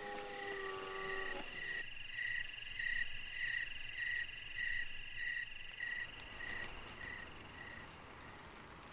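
Night chorus of calling animals, crickets and other insects: a steady, fine high trill with a short clear note repeating about twice a second. It is preceded by a held tone with several pitches that stops abruptly about a second and a half in.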